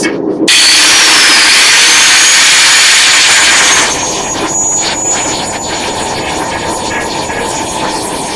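Angle grinder with a grinding wheel grinding the edge of a steel piece: a loud rushing hiss with a high whine that starts suddenly about half a second in, then eases to a lighter, uneven grind about four seconds in.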